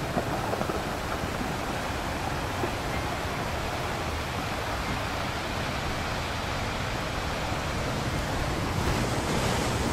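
Sea water churning and splashing in a steady, even rush of waves, getting a little louder near the end.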